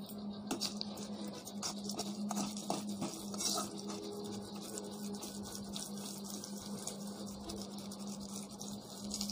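Green chillies, fried gram, garlic and tamarind frying in a little oil in a kadai: a steady sizzle, with a metal spoon scraping and tapping against the pan now and then. A low steady hum runs under it.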